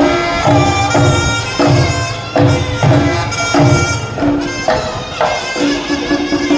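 Thai bua loi ensemble playing funeral music: a nasal pi chawa shawm melody over steady low strokes of the klong malayu drums, with a held gong tone.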